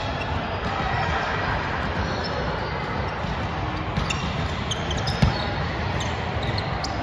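Steady reverberant background noise of a large gym hall, with one sharp thump about five seconds in: a volleyball being struck.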